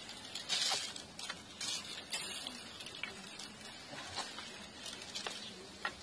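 Hand-held pump sprayer squirting water in a series of short, irregular hissing bursts, the strongest about half a second in, with a few sharp clicks between squirts.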